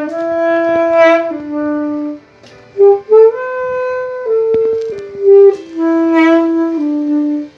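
Saxophone playing a slow melody of held notes: it starts low, breaks off briefly about two seconds in, rises through the middle and steps back down to a low note at the end.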